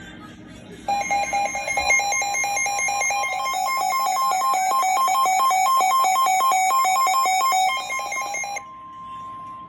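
Weather radio emergency alert tones heralding a severe thunderstorm warning. A rapidly alternating two-tone electronic warble starts about a second in and runs for over seven seconds, then gives way to a single steady tone.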